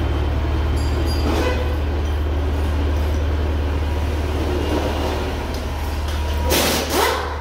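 A steady low workshop hum with some mechanical clatter, then near the end a short loud burst from a handheld power tool run against a Scania diesel engine block during teardown.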